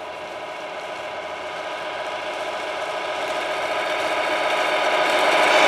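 Tamiya Globe Liner RC truck driving toward the camera: a steady mechanical whine and hum that grows steadily louder as it comes closer.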